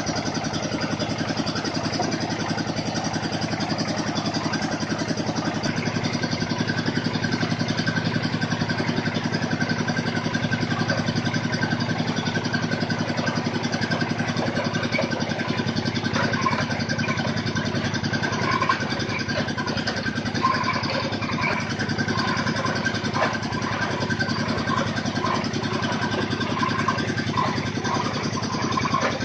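Engine of a water-well drilling machine running steadily at a constant speed. Light, short clicks come through over it in the second half.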